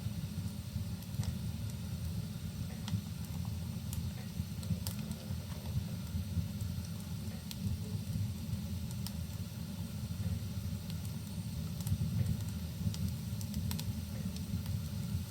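Wood fire in a fireplace crackling, with scattered sharp pops over a steady low rumble.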